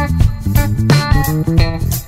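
Instrumental background music with plucked bass guitar and guitar over a steady beat.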